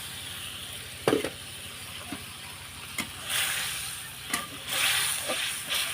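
Fried potato being stirred into a cooked-down spice masala in a karahi: a steady sizzle that swells twice in the second half, with a spatula knocking against the pan four times.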